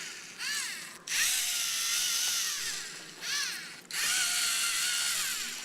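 A small student-built robot's electric drive motors whining in spurts. There are short bursts that rise and fall in pitch as the motors spin up and slow down, and two longer runs of about two seconds each.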